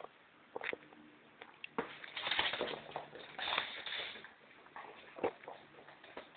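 Shih tzu at play: scattered light taps and scuffles, with two longer bursts of scuffling about two and three and a half seconds in.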